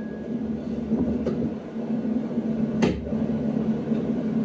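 Steady low running hum of a car heard from inside its cabin, with a sharp knock about three seconds in.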